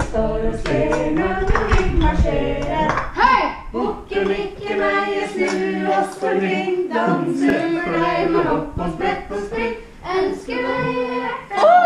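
A group of women and children singing a birthday song together, with held notes.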